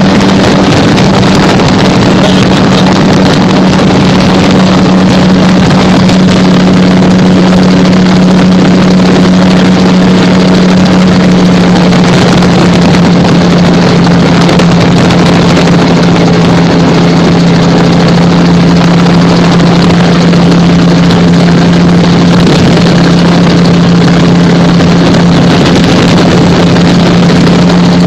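Gyrocopter's engine and propeller droning steadily in flight, holding one low pitch, over a loud rushing noise of air.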